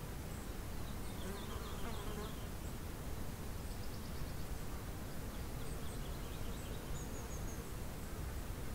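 Faint outdoor ambience: a steady insect buzz with a few faint, high bird chirps scattered through it.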